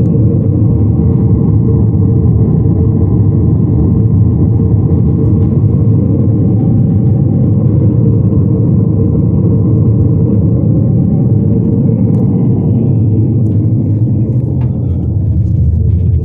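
Pink noise played loud through a JBL Tornado 2200 subwoofer, bass only, with the mid-range drivers and horns switched off. It is a steady, deep rushing rumble with little above the low end, held at a constant level for a sound-pressure test.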